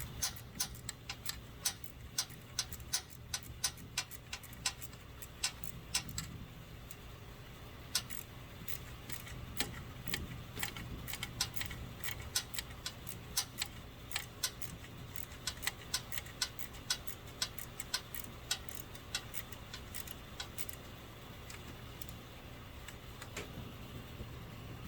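Ratchet wrench clicking as a 10mm bolt is run in: a long irregular run of sharp clicks, a few a second, thinning out near the end.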